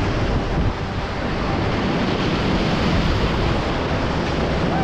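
Whitewater river rapids rushing: a steady, even wash of churning water, with wind on the microphone.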